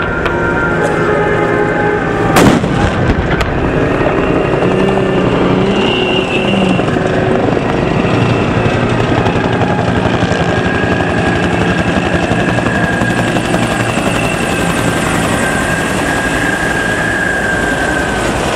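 A single loud gun blast about two and a half seconds in, followed by military helicopters flying low overhead, their rotors beating steadily with a high whine.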